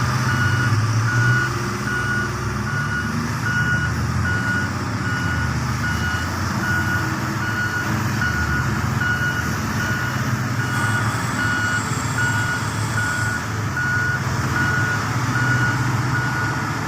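Reversing alarm on heavy mining equipment beeping at an even pace over the steady low rumble of a large diesel engine.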